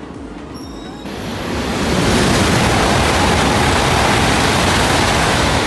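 E5 series Shinkansen passing through the station at speed without stopping: a loud rushing roar of air and rail noise that builds up about a second in and then holds steady.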